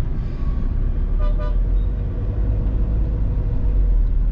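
Steady low rumble of a Mahindra XUV500 driving in traffic, heard from inside the cabin. A short vehicle horn toot sounds about a second in.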